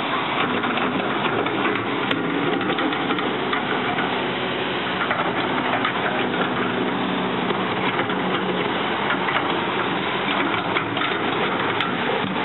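Diesel engine of a tracked excavator running steadily.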